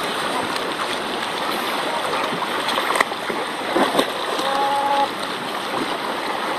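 Choppy sea water sloshing and splashing around a kayak, with a few sharp knocks and a short steady call about four and a half seconds in.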